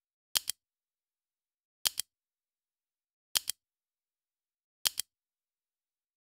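Camera shutter click sound effect: a quick double click repeated about every one and a half seconds, with silence between.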